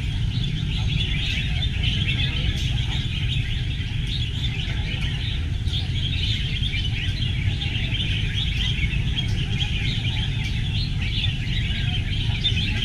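Many caged red-whiskered bulbuls singing and calling at once, a dense, unbroken chatter of overlapping songs over a steady low rumble.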